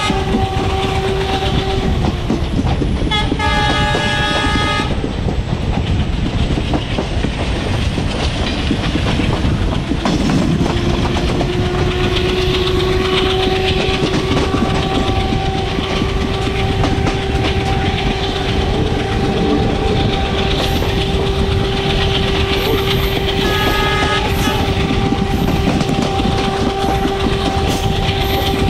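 WDM-3A diesel locomotive hauling a passenger train: its multi-tone horn is sounding at the start, blows again from about three to five seconds in, and once more briefly near the end. Under it runs the steady rumble and clickety-clack of the moving train, with a steady whine coming in about ten seconds in.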